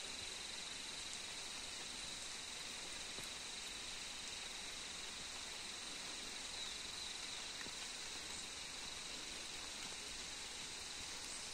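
Faint, steady insect chorus: one constant high note over an even hiss that does not change.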